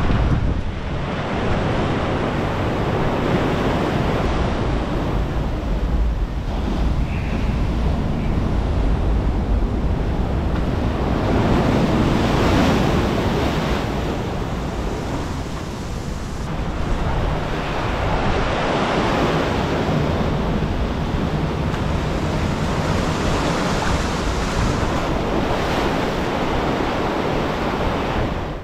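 Ocean surf breaking below a pier, mixed with wind buffeting the microphone: a steady rushing noise with a low rumble that swells and eases every few seconds.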